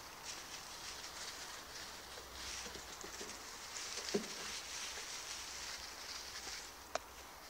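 Border Collie pups scuffling and rolling in straw bedding, a steady rustle of dry straw. A brief low sound about four seconds in and a single sharp click near the end.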